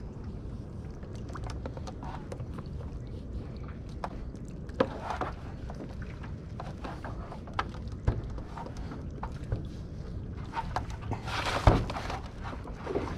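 Small knocks and clicks of a plastic kayak hull bumping and rubbing against a pontoon, over a low steady rumble of water noise. There is a louder knock with a short rush of water near the end.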